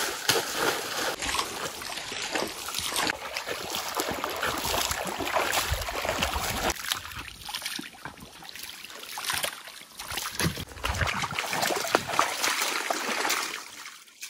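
Water splashing and sloshing in a shallow stream as a dog wades and swims through it and a man scoops and throws water with his hands, in many irregular splashes. It dips quieter for a moment midway and fades out near the end.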